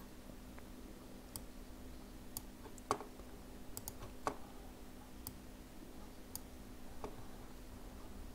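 Computer mouse clicking, about nine scattered clicks as red cut marks are drawn in a paint program, over a faint steady hum.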